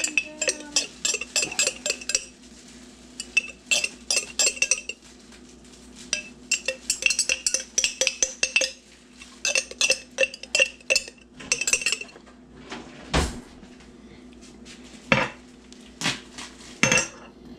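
A metal table knife clinking and scraping against the inside and rim of a glass jam jar in quick clusters of sharp, ringing clicks as the jam is dug out onto a plate. A couple of duller knocks come later on.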